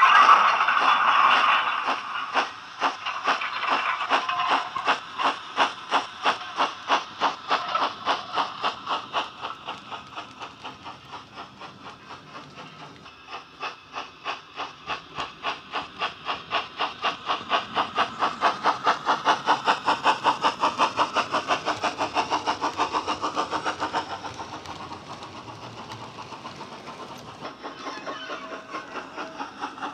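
Recorded steam locomotive exhaust beats played by a Wheeltappers DCC sound decoder through a Bachmann J11 model's speaker: a loud hiss at first, then a steady run of chuffs that fades as the model runs away and grows louder again as it comes back round.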